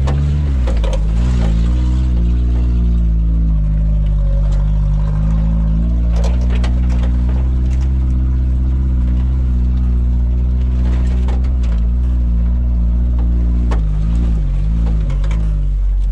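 Suzuki Samurai's engine running under load as the 4x4 crawls off-road, its pitch rising and falling as the throttle is worked. A few sharp knocks from the vehicle over rough ground come through.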